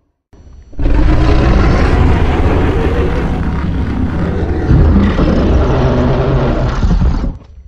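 A loud, rumbling creature sound effect made for a kaiju monster: one long, noisy blast of about six seconds that starts abruptly just under a second in and fades out near the end.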